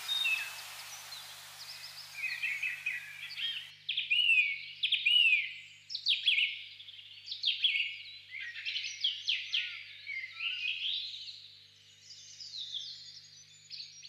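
Birds chirping and calling in a quick, busy run of short rising and falling chirps. A steady hiss behind them cuts off suddenly about three and a half seconds in.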